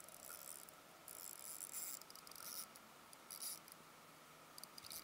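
Spinning reel cranked in short spurts with a faint high whirring, reeling in a fish on a bent light rod.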